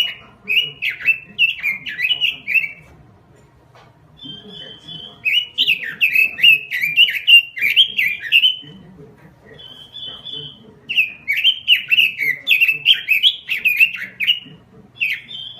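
Red-billed leiothrix (Pekin robin) singing vigorously: three bursts of quick, warbling notes, the second and third each opening with a short, steady higher whistle.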